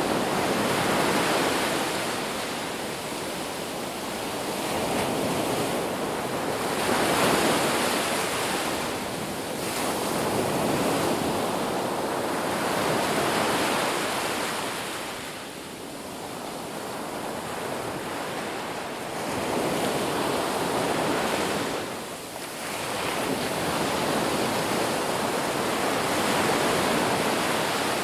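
Ocean waves breaking and washing up on the shore, the surf swelling and receding every few seconds.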